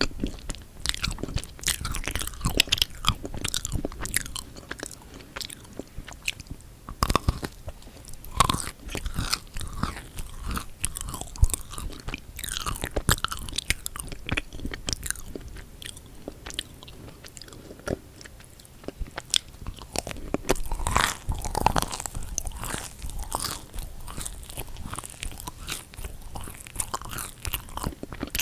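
Close-miked eating of chocolate-coated marshmallow cookies: bites crunching through the chocolate shell and sticky chewing, with many small crackles and mouth clicks throughout.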